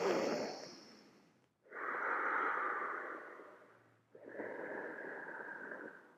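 A person breathing slowly and audibly, long hissing breaths of about two seconds each with short pauses between, the deep controlled breathing of a yoga practice held in a twisting pose.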